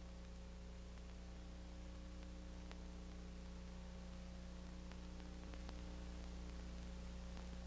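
Faint steady low hum and hiss of an old optical film soundtrack, with a few faint ticks of crackle.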